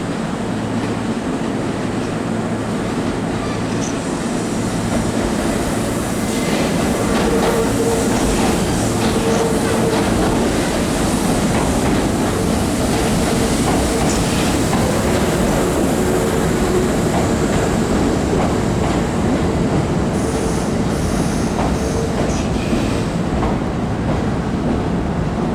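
Kintetsu electric train moving along the track: steady running noise with wheels clicking over rail joints and some wheel squeal. It grows a little louder about five seconds in.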